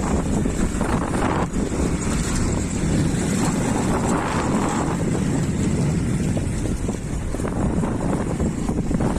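Steady wind rushing over the microphone of a moving motorcycle, with the bike's riding noise underneath.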